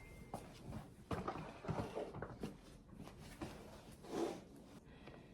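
Faint, scattered taps, knocks and rustles of things being handled, with one slightly louder dull knock about four seconds in.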